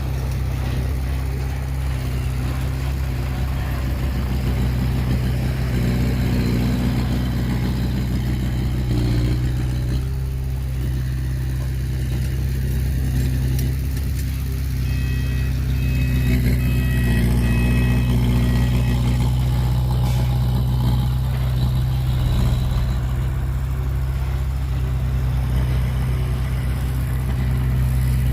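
Heavy diesel engine of earthmoving machinery running steadily with a deep drone, with a few short high-pitched squeaks or chirps about halfway through.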